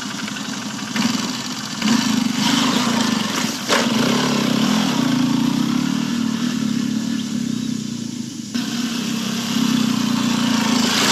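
Honda CRF150L dirt bike's single-cylinder four-stroke engine running and revving up about two seconds in as the bike rides off along the track and back. There is one sharp click about four seconds in.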